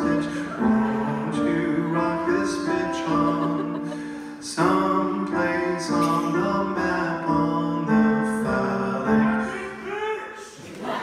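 Live solo performance: a man singing over his own grand piano playing, with held sung notes over piano chords. The music drops briefly near the end.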